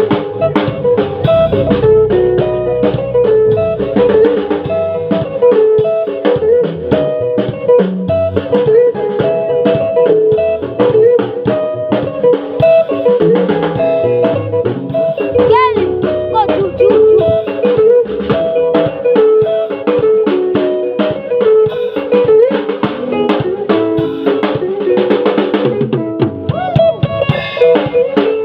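Band music with a drum kit and guitar, playing steadily without a break.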